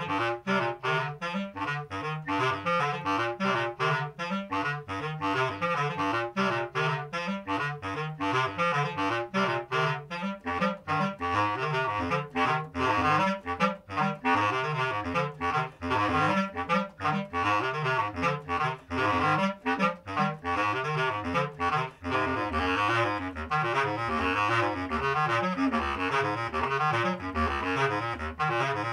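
Two bass clarinets playing a fast duet in their low register, the two parts interlocking note by note (hocket) into one rapid, funky bass line. The notes are short and detached in the first half and run together more closely from about halfway on.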